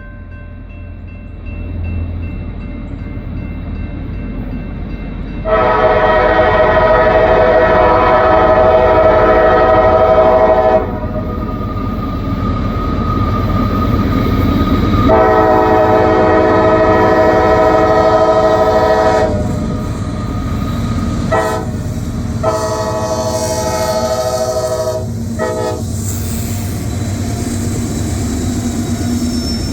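Nathan K5LA five-chime air horn on a CSX GE CM44 diesel locomotive sounding the grade-crossing signal: two long blasts, a short one and a final long one, over the rumble of the approaching diesel freight train.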